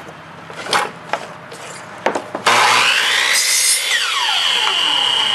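Ryobi miter saw cutting a wooden block. First come a few knocks of wood being handled. About two and a half seconds in, the motor starts with a rising whine, its pitch drops as the blade goes down into the wood, and it then holds a steady high whine.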